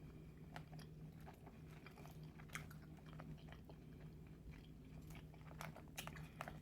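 Faint, close-miked chewing of boiled shrimp, with scattered wet mouth clicks and crunches, over a steady low hum.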